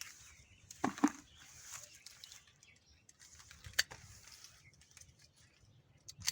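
Faint outdoor ambience with birds chirping in the background. A brief sharp sound comes about a second in, and a short click near four seconds.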